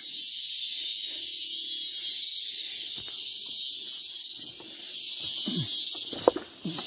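Steady high-pitched hiss of a tropical forest insect chorus, with a few faint brief sounds and a click near the end.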